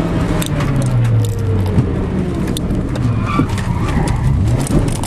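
Rally car engine heard from inside the cabin at speed, its note dropping over the first couple of seconds, with sharp rattles and clicks throughout.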